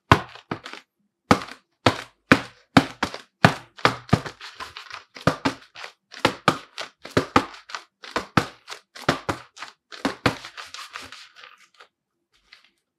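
Latex-palmed goalkeeper gloves (HO Soccer Legend II) slapping and gripping a football, a quick run of sharp slaps two or three a second that stops near the end.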